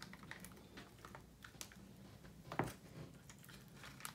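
Faint crinkles and small scattered clicks from a foil MRE grape jelly packet being torn open and handled, with one sharper click about two and a half seconds in.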